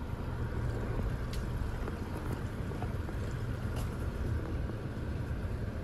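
Car running, heard from inside the cabin: a steady low rumble of engine and road noise, with a couple of faint ticks.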